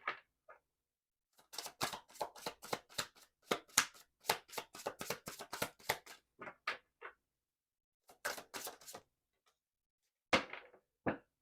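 A tarot deck being shuffled by hand: runs of quick card clicks and snaps, then a pause, then two thumps near the end as the cards meet the table.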